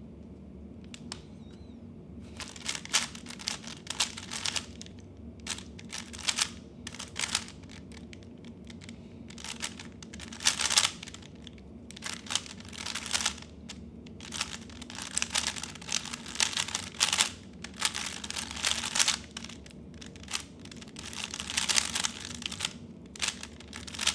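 3x3 Rubik's speedcube being turned fast during a timed solve: quick runs of plastic clicking and clacking broken by short pauses, starting about two seconds in. The solver later says this solve felt locky.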